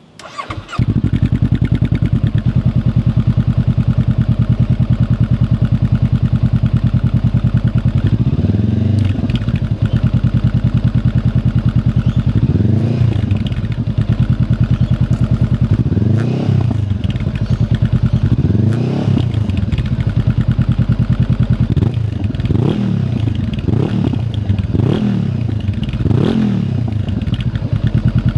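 Honda CB500X's parallel-twin engine breathing through a Delkevic oval carbon 350 mm silencer: it starts about half a second in and settles into a steady idle. From about eight seconds in it is revved with about nine short throttle blips, each rising and falling back to idle, coming closer together in the last several seconds.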